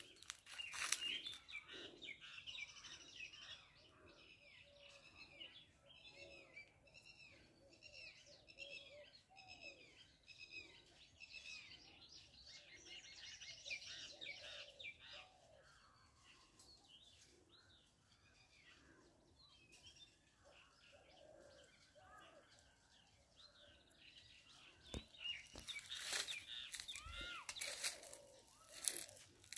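Wild birds chirping and calling in many short, repeated notes, busiest in the first half. Near the end comes a crackling, rustling sound like dry leaves being crunched.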